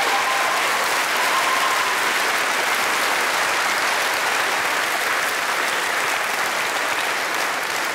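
Studio audience applauding steadily, easing off slightly near the end.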